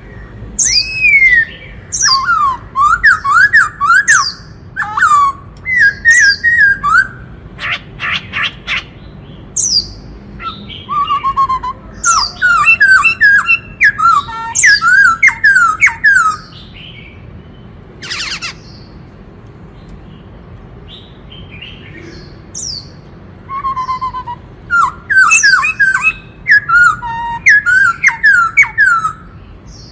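Black-throated laughingthrush (khướu bạc má) singing: bursts of rapid whistled notes sliding up and down in pitch, with a pause of several seconds in the middle broken by one short rasping burst.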